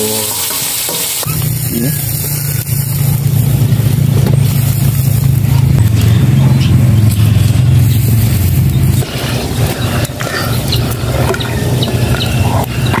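A brief sizzle of food frying in a wok, then a loud, steady low rumble for about eight seconds, then a run of sharp knocks and clicks from a cleaver chopping chillies on a wooden stump.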